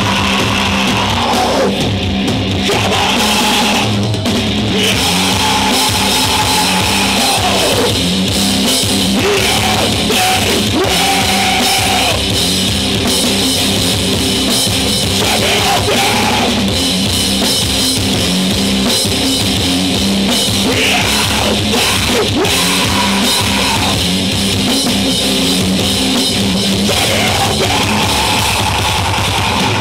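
A heavy metal band playing live at full volume: distorted electric guitar, bass guitar and a pounding drum kit, with sustained bending guitar notes.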